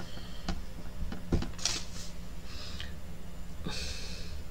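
A few light knocks of a clear acrylic stamp block being inked on a pad and set down on card, the loudest about a second and a half in, with three short hissy breaths.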